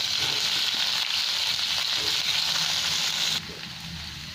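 Paneer cubes sizzling in hot vegetable oil as they are shallow-fried in a kadai: a loud, even hiss. About three and a half seconds in it drops suddenly to a softer sizzle.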